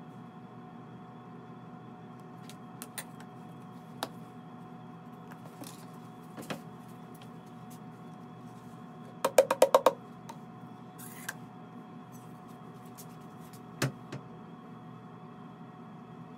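Dry glaze materials being scooped and weighed: a small metal scoop and a plastic container on a scale knock and clink. A quick run of about six taps comes about nine seconds in, with scattered single knocks, over a steady hum.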